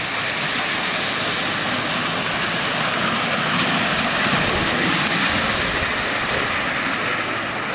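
5-inch gauge live-steam Duchess class locomotive running along the track, with a steady hiss of steam.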